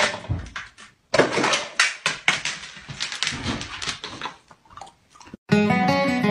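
A rapid clatter of clicks and knocks from a refrigerator's door dispenser being worked by a boxer dog's paws. Strummed guitar music comes in near the end.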